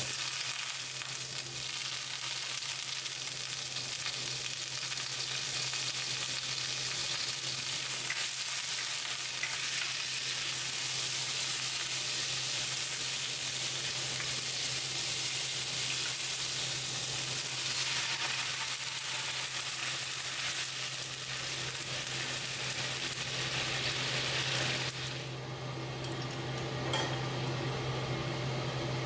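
Chicken slices, garlic and shrimp sizzling in hot oil in a wok, with a spatula tossing them. About 25 seconds in the sizzle drops away suddenly as stock is poured in, leaving a quieter bubbling simmer.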